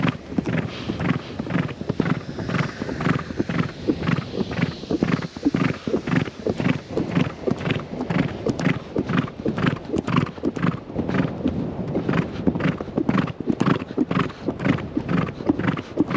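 A horse's hooves beating on a sandy track, heard from the saddle, in a steady rhythm of about two to three strikes a second.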